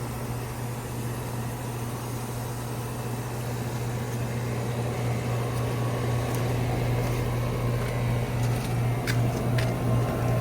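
Central air conditioner's outdoor condensing unit running with a steady low hum that grows slightly louder and begins to pulse near the end, after a call for cool, on its newly replaced run capacitor. A few light clicks come near the end.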